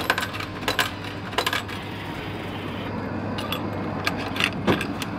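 Coins clinking in a vending machine's coin tray as a hand handles them: a scatter of short metallic clinks.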